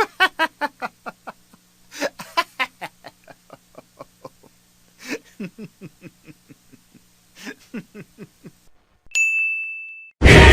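A run of short laughing bursts, several a second, coming in spurts. About nine seconds in a click is followed by a single held high ding tone. Loud music cuts in just before the end.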